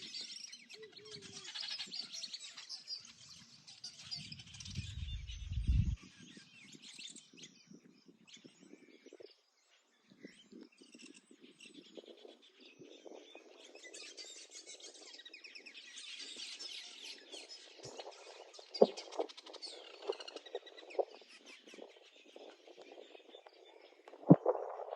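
Birds chirping in open country, with a low rumble that cuts off suddenly about six seconds in, and a few sharp knocks near the end.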